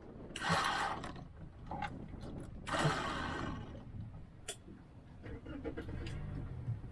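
Water slapping against the hull of a small boat at anchor, two short splashes about half a second and three seconds in, with scattered light clicks and rattles from the boat's fittings.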